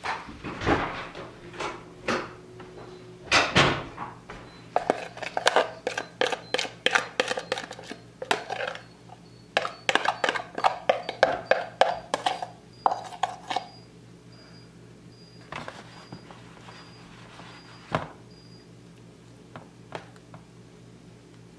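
Plastic tub knocked and shaken over a foil baking pan as a crumbly topping is sprinkled out: a few knocks, then a dense run of quick light clicks and rattles for several seconds, thinning to a few scattered taps.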